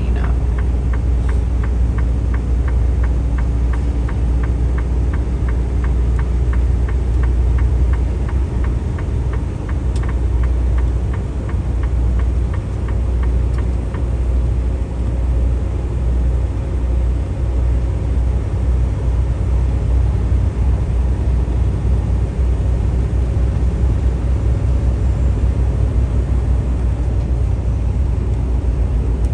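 Semi-truck on the road, a steady low rumble of engine and tires, with a quick, even ticking for about the first ten seconds.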